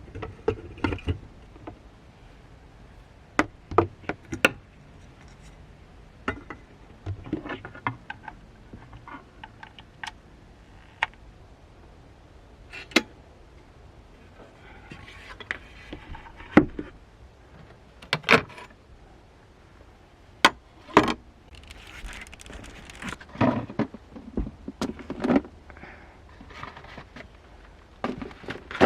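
Irregular clicks, knocks and short rustles of small objects being handled, with quiet gaps between them.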